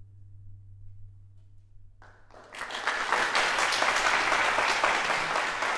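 The last low note of a string orchestra fading away, then audience applause breaking out about two seconds in and continuing loudly.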